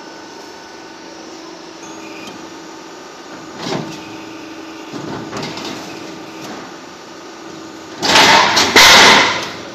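Roof tile roll forming machine running with a steady hum as the steel sheet feeds through, with a couple of soft knocks. About eight seconds in there is a loud burst of noise lasting about a second and a half as the tile-pressing die comes down to stamp the step into the sheet.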